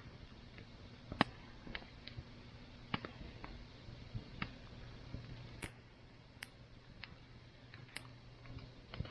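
Wood campfire crackling: irregular sharp pops and snaps, one or two a second, over a faint steady low background.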